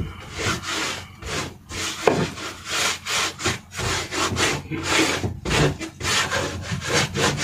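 Paintbrush bristles rubbing paint onto a plywood wall of a wooden boat cabin, in repeated back-and-forth strokes about two a second.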